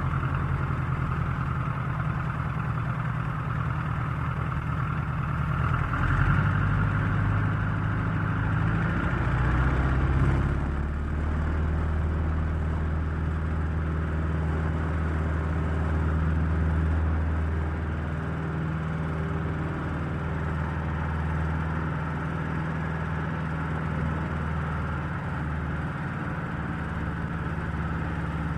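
Old airplane's engine running with a continuous low drone, shifting in pitch a couple of times in the first ten seconds and then holding steady.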